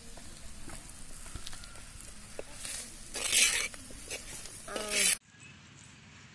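Shallots and garlic frying in a little oil in a clay pot, sizzling as a steel ladle stirs and scrapes them, with a louder surge of sizzling about three seconds in. A brief voice-like call comes just before five seconds, then the frying cuts off to a quieter background.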